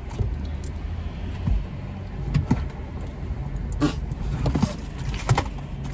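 Steady low hum inside a car, with a few short sharp clicks and rustles scattered through it.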